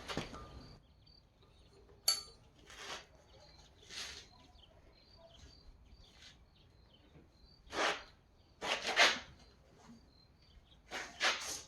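Irregular handling noises of metal engine parts and tools on a bench, with one sharp metallic clink about two seconds in and several short scraping and rustling bursts.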